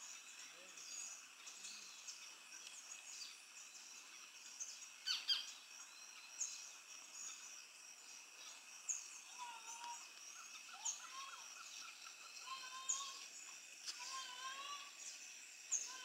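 Wild birds calling: short high chirps every second or two, with warbling calls in the second half, over a steady high hum. A few sharp clicks sound about five seconds in.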